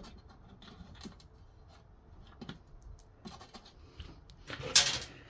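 Small clicks and scrapes of screws being undone from the metal burner cover of a Baxi Solo 3 PFL boiler, with one louder half-second scrape about four and a half seconds in.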